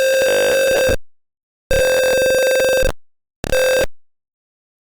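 Gas alarm sounding a buzzy electronic tone. The tone already sounding stops about a second in, a second one of about a second follows, then a short third beep.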